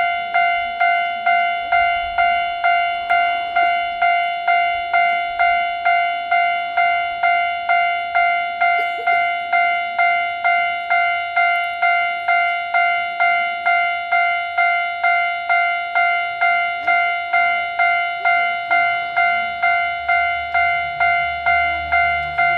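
Japanese level-crossing warning bell ringing in an even rhythm, about one and a half strikes a second, each strike a ringing electronic tone. In the last few seconds a low engine rumble builds beneath it as a diesel railcar approaches.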